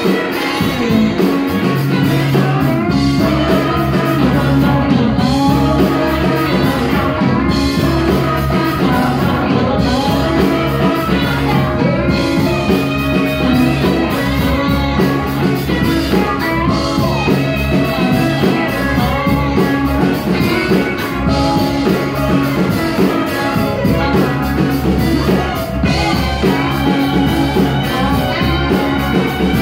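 Live rock band playing: electric guitars, bass, drums and keyboards, with a male and a female singer.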